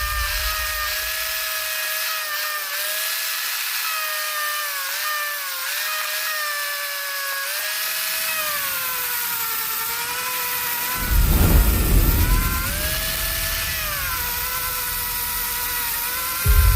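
Small electric power tool, such as a drill or rotary tool, running with a high whine whose pitch sags and recovers as it is loaded against the work. A burst of low rumbling noise comes in about eleven seconds in and again near the end.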